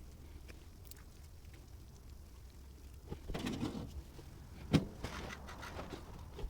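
A low steady hum, then rustling and handling noise, with one sharp knock a little after the middle.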